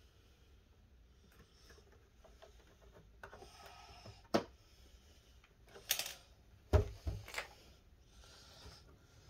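Hands working on the plastic casing of an Xbox Series X console: faint handling noise, a sharp plastic click about four seconds in, then a scrape and a few knocks around six to seven seconds in.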